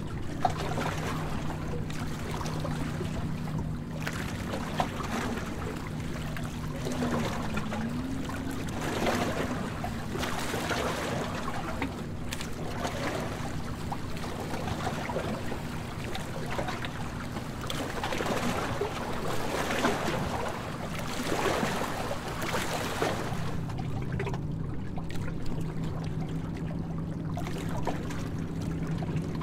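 Harbour tour boat under way: its engine gives a low steady hum under water rushing along the hull, swelling and fading every few seconds.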